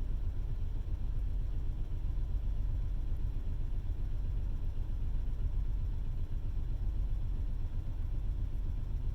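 Truck APU's small diesel engine cranking on its starter without catching, heard from inside the closed cab as a steady low rumble. It turns over but won't fire, which the owner takes for a fuel delivery problem, perhaps the fuel pump.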